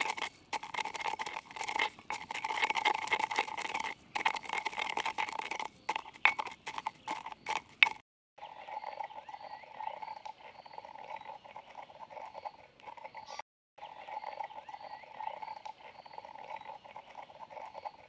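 A wooden pestle grinding and knocking dry spice seeds in a clay mortar, with quick scraping clicks for about eight seconds. After that the grinding falls away and a quieter, steady chorus of animal calls carries on.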